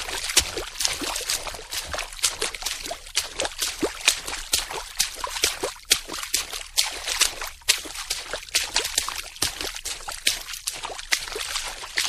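Water splashing: a dense run of quick, uneven splashes, several a second, without let-up.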